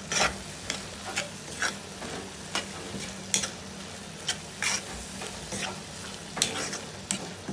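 A spatula stirring sisig in a hot pan: irregular scrapes and knocks against the pan about twice a second over a steady sizzle of frying.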